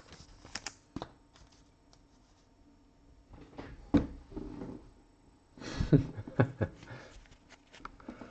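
A stack of 2020 Select soccer trading cards being handled: scattered short clicks and soft slides of card on card, busiest around six seconds in.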